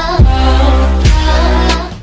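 Electronic music with a heavy, sustained bass and two deep drum hits about a second apart, fading out near the end.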